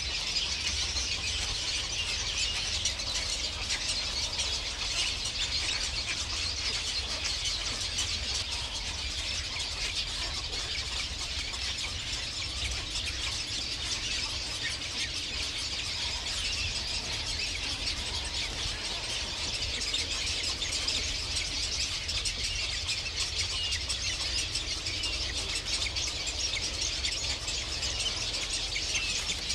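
Dense, steady chorus of high-pitched bird calls, with a low rumble underneath.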